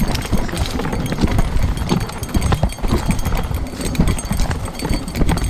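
Mountain bike riding fast over a rocky trail: tyres crunching and knocking over loose stones and the bike rattling with each hit, over a constant low rumble.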